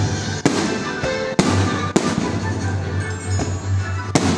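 Aerial firework shells bursting: four sharp bangs about a second apart, each trailing off in an echo, the last near the end. Music plays underneath.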